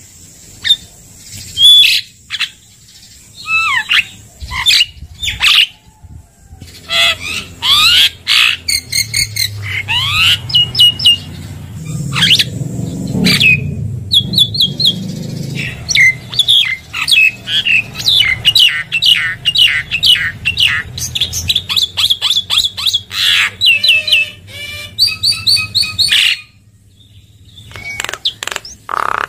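Javan myna (jalak kebo) singing: a loud, varied run of chattering notes, quick downslurred whistles and harsh squawks, broken by a short silence near the end.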